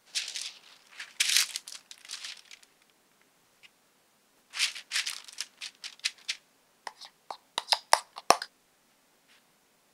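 Parchment paper rustling and crinkling as it is handled and a flour tortilla is laid on it, in two spells of rustling. Near the end come a quick run of sharp clicks, a metal spoon tapping against a glass bowl of garlic sauce.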